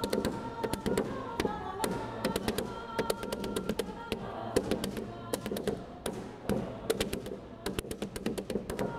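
A group singing together, with a 'la la' melody over a low 'bum, bum' part, accompanied by many sharp percussive taps.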